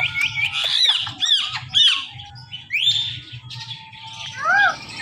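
Indian ringneck parrot squawking: a quick run of short rising-and-falling calls in the first two seconds, a single rising call about three seconds in, and another arched call near the end.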